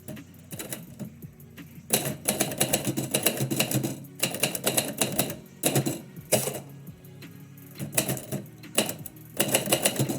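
Typewriter typing in quick runs of keystrokes, several bursts separated by short pauses, over quiet background music.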